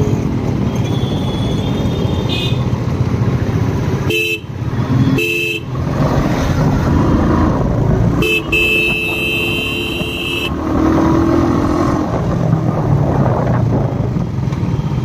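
Vehicle horns honking over the running single-cylinder engine of a Royal Enfield Bullet motorcycle on the move. There are short toots about two, four and five seconds in, and a longer honk of about two seconds past the middle.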